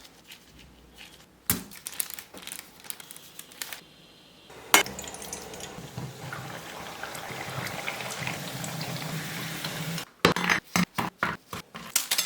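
Kitchen cooking sounds: scattered clinks of utensils and dishes, a sharp knock, then a steady hiss for about five seconds that cuts off suddenly, followed by a quick run of clinks and knocks.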